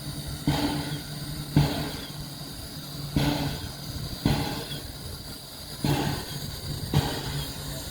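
Steam locomotive working slowly, its exhaust beats coming as about six sharp chuffs with hissing tails, roughly a second apart and uneven, in pairs. A steady low hum runs underneath.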